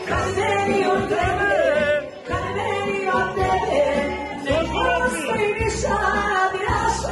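A woman singing a song live into a handheld microphone, amplified, over music with a steady low beat.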